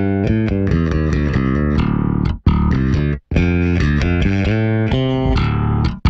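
Six-string Warwick Thumb NT bass played through a Two Notes ReVolt Bass preamp pedal on its clean channel with cab simulation on. It plays a quick run of short notes, cut off briefly twice, at about two and a half and three and a quarter seconds in.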